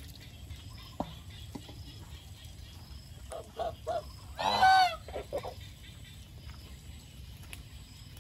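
Domestic geese honking: a few short low calls about three seconds in, then one loud, harsh honk near the middle, followed by a couple of softer ones. A single sharp tap comes about a second in.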